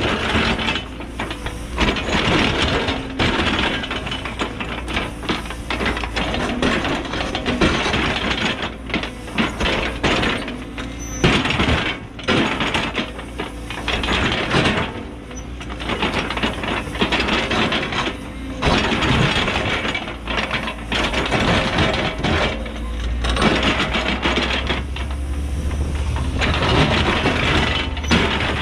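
Cat 314E excavator ripping extremely hard rock with a single-shank ripper tooth: irregular grinding and scraping of the shank against the rock, broken by sharp cracks as the rock gives. Under it runs the diesel engine working under load, its low drone turning steadier and stronger near the end.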